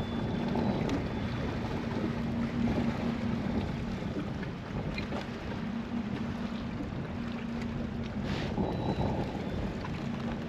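Wind buffeting the microphone over choppy open water, with a steady low hum underneath.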